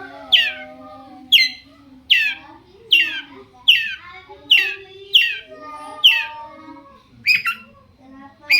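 Long-tailed shrike (cendet) giving a series of harsh, scratchy calls that each drop in pitch, about one every second, with a quick double call near the end.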